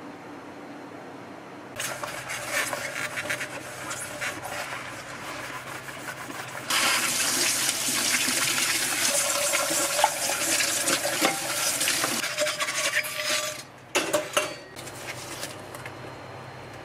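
Water running and splashing, like a tap running into a sink or pot. It starts about two seconds in, gets louder around seven seconds, cuts off briefly near fourteen seconds, then runs a moment more and stops.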